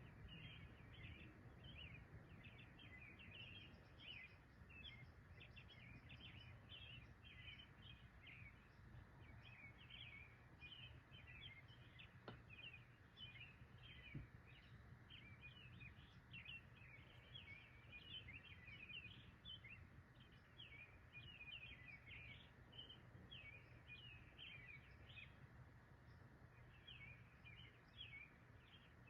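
Faint chorus of many small animals chirping, short calls several a second overlapping without pause, over a steady low rumble.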